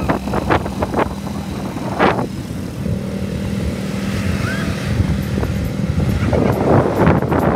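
Motor vehicle engine running with a steady hum, from a quad bike and then an SUV driving over sand.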